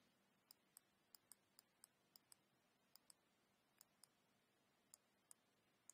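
Near silence with about fourteen faint, irregular light clicks, one for each pen stroke as a word is handwritten on a digital whiteboard.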